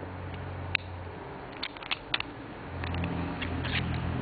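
Light clicks and taps of the small parts of a disassembled airsoft pistol being handled, a few scattered ticks, over a steady low hum that swells about three seconds in.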